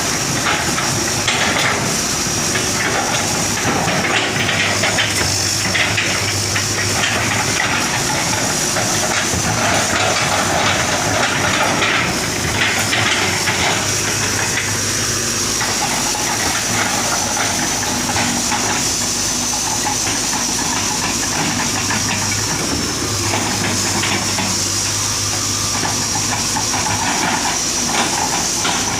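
Hitachi hydraulic excavator running steadily at work, with a constant high thin whine over the engine hum and scattered clattering of soil and stones.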